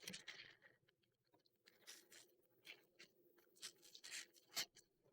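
Faint, irregular scratching and crinkling of a mailing package being cut open with a blade.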